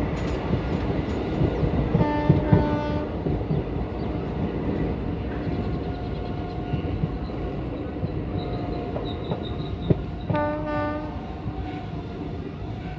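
Passenger train running on the rails, heard from an open coach doorway: a steady rumble and clatter of wheels on track. A train horn sounds two short blasts, one about two seconds in and another about ten seconds in. The running noise grows quieter near the end.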